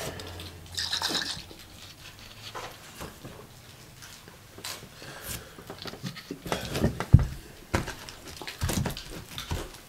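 Close-up eating and drinking sounds: swallows from a soda bottle, and scattered sharp clicks and crackles of fried chicken being pulled apart and chewed. The loudest click comes about seven seconds in.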